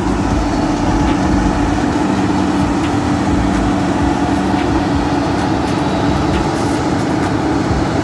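New Holland 8050 combine harvester running steadily as it moves through the crop harvesting rice: a loud, even drone of the engine and threshing machinery.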